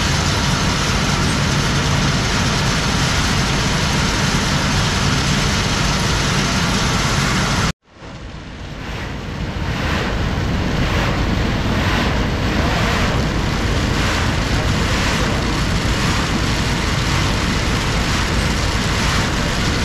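A loud, steady running engine or machine. It cuts out suddenly about eight seconds in and fades back in over a couple of seconds, then runs on with a faint regular pulse a little under a second apart.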